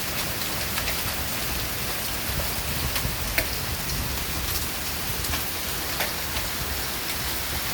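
Heavy rain falling in a steady hiss, with scattered sharp ticks of hailstones striking hard surfaces every second or so.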